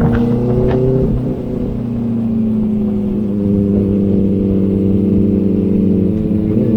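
Inline-four sport motorcycle engine running on the road. The engine note wavers and drops, softening briefly about a second in, then holds a steady, slowly easing note, with a short rise near the end.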